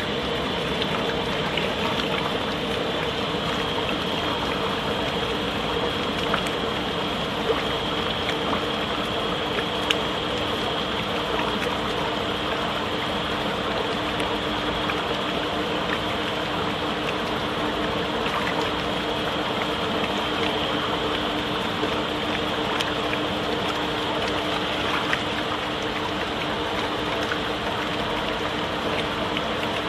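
Wafer batter mixer running: a steady motor hum with the wet churning of thick batter being folded in the stainless-steel tank. A second, lower hum comes in about eight seconds in.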